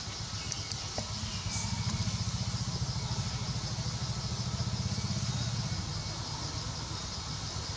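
A vehicle engine running, growing louder for a few seconds and then fading, as if passing by, over a steady high hiss.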